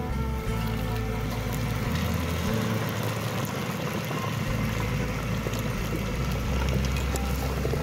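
French fries deep-frying in a pot of hot oil, a steady sizzle.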